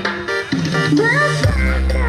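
Electronic dance remix music. The heavy bass drops out at the start and comes back about a second and a half in, under a melody whose pitch bends up and down.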